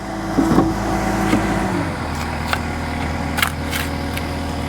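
Takeuchi skid steer's diesel engine running steadily, its engine speed dropping to a lower steady pitch about two seconds in, with a few sharp knocks over it.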